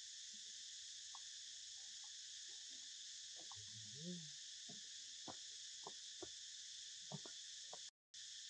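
Faint, steady high-pitched chorus of insects, with a few soft ticks scattered through the second half and a brief low sound about four seconds in. The sound cuts out completely for a moment near the end.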